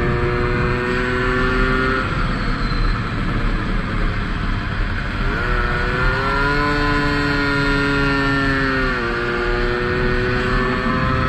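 Tomos 50 cc two-stroke racing moped engine at high revs, heard onboard over wind rush. It drops off throttle about two seconds in, revs up again with a rising note around five and a half seconds, then falls in pitch as it shifts up near the end.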